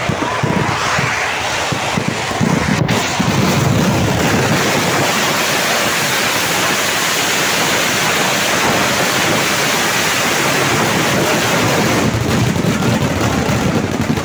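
Kerala temple vedikettu fireworks barrage: firecrackers going off so densely and close together that the blasts merge into one loud, continuous noise, with a brief break about three seconds in.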